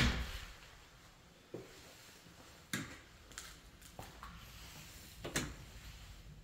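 An interior door shutting with a sharp knock at the start, then a few soft knocks and footfalls, spaced about a second apart, in a quiet room.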